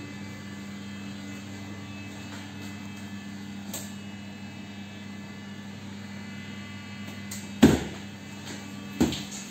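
Steady low electrical hum in a small room. Two sharp knocks come near the end, about a second apart, the first louder.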